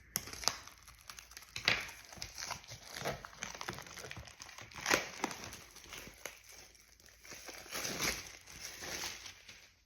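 Packaging crinkling and tearing as a pack of printed cards is opened by hand: irregular crackles and rustles, loudest about five seconds in.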